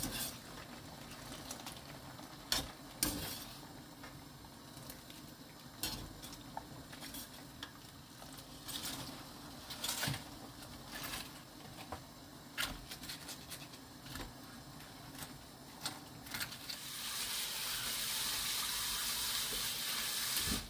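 Scattered light knocks of stainless-steel pots and bowls over a faint steady hum while blanched cabbage is scooped out into cold water. From about three-quarters of the way in, a kitchen tap runs in a steady rush onto the cabbage in a bowl in the sink, rinsing it.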